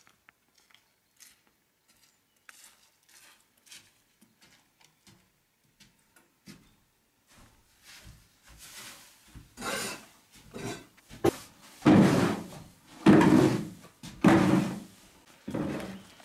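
A long-handled tool scraping and pushing hay and sawdust across the wooden floor of a small den, in strokes about once a second. The strokes start faint with a few light knocks and grow much louder in the second half.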